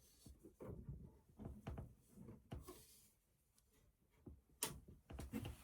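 Faint handling knocks and clicks against a computer case, with one sharper click about two-thirds of the way through.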